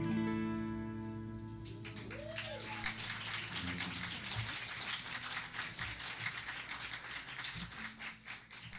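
The last chord of an acoustic and an electric guitar rings out and fades over about two seconds. Then a small audience starts applauding and keeps clapping.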